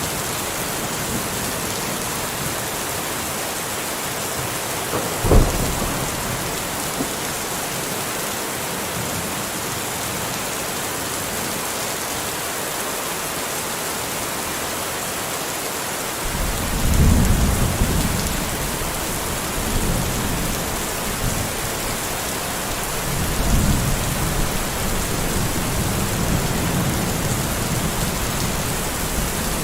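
Steady rain hissing, with a single sharp thunder crack about five seconds in and low rolling thunder rumbling in slow waves through the second half.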